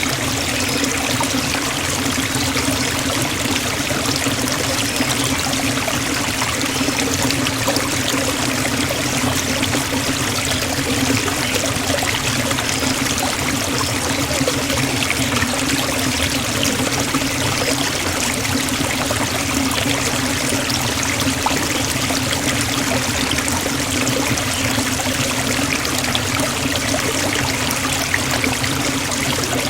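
Forest waterfall: a steady, unbroken rush of falling and splashing water.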